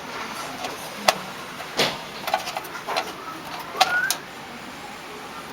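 Scattered clicks and knocks of screws and metal parts being handled while a motherboard is fitted into a computer case, about half a dozen over a few seconds, with a short rising chirp about four seconds in.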